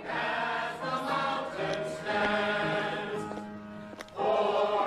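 A choir singing with music, in long held notes; the sound dips briefly about four seconds in.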